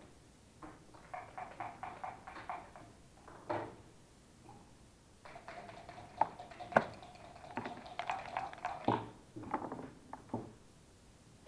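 Backgammon dice rattled in a dice cup in two runs of quick clicking. The second run ends in sharp clacks as the dice land on the board, and a few separate knocks of pieces being set down follow.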